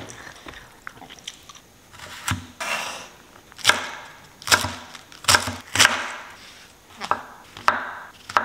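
Knife chopping on a wooden cutting board in separate, unevenly spaced strokes.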